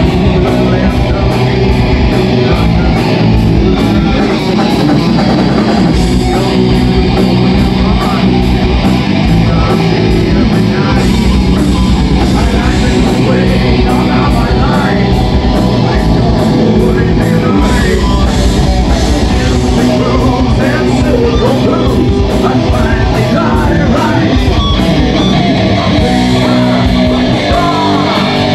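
A live rock band playing loud: electric guitars, bass guitar and drum kit, with a vocalist singing into a microphone.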